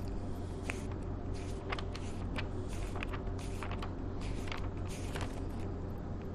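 Paper pages of a Quran rustling and being turned: a run of short, crisp, irregular swishes that stop near the end, over a steady low hum.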